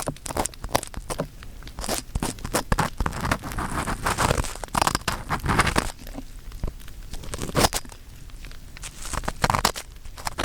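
Ear pick scraping and rubbing inside the ear of a 3Dio binaural microphone: a close, dense, irregular run of scratches and crunchy clicks.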